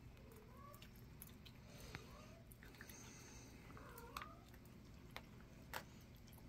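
Kittens mewing faintly, several short high mews that rise and fall in pitch, with scattered soft clicks.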